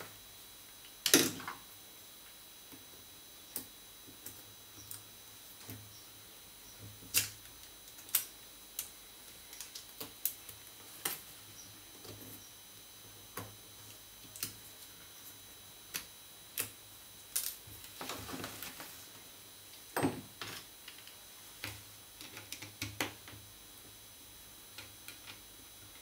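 Scattered small clicks and taps, the loudest about a second in, from hands and a precision screwdriver working on an opened Samsung Galaxy Tab 3 10.1's plastic frame and flex-cable connectors.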